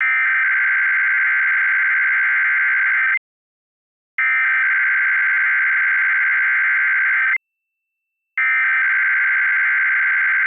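Emergency Alert System SAME header for a Required Weekly Test: three bursts of digital data tones, each about three seconds long, separated by roughly one-second silences.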